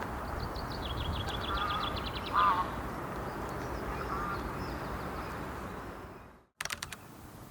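Birds calling over steady background noise: a quick run of high ticks lasting about two seconds, then a few short calls. The sound cuts out abruptly near the end, followed by a few clicks and a quieter background.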